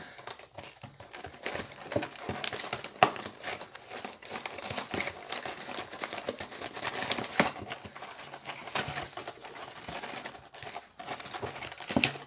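Krispy Kreme doughnut bites cardboard box being torn open by hand: continuous crinkling and crackling of the paperboard, with sharp snaps, the loudest about three seconds in.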